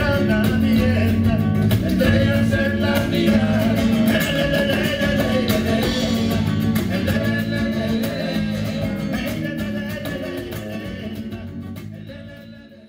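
Flamenco music on acoustic guitar with bass guitar and drums, fading out over the last few seconds.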